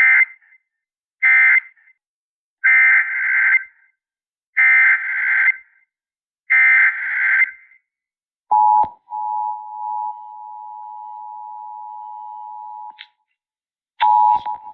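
Emergency Alert System data bursts over weather radio: two short screeching bursts, then three longer bursts of the next warning's header, about two seconds apart. A steady alert tone follows for about four seconds and cuts off, then sounds again briefly near the end.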